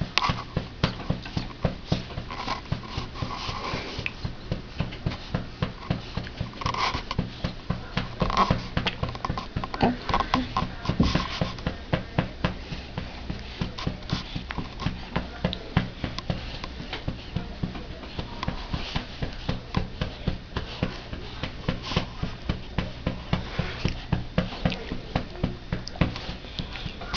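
Steady rhythmic patting on a baby's back to bring up a burp, about two soft pats a second, with a few short baby sounds around the middle.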